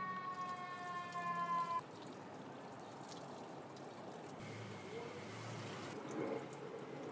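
A siren's wail, a steady tone sliding slowly down in pitch, cuts off about two seconds in. Then engine coolant trickles and dribbles out as the Toyota RAV4's thermostat housing is cracked open.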